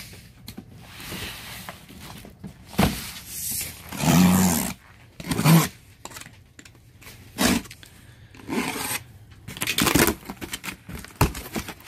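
Box cutter slicing the packing tape on a cardboard box in several short strokes, then the cardboard flaps being pulled open.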